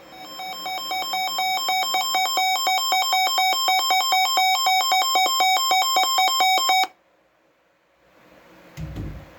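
Weather alert radio's electronic alarm, a harsh beeping tone flipping rapidly between two pitches, signalling a newly received severe thunderstorm warning. It grows louder over the first couple of seconds and cuts off abruptly about seven seconds in. A short low thump comes near the end.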